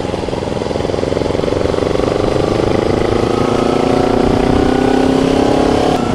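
Motorcycle engine accelerating, its pitch climbing slowly and its sound growing louder, with wind rumble on the onboard microphone.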